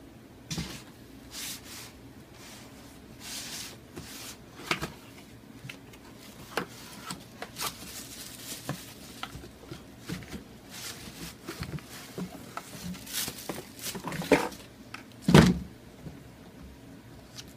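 Cardboard shoebox being opened and handled, with tissue paper rustling and a string of light cardboard knocks and clicks. A louder thud comes near the end as a sneaker is set down on a cardboard box.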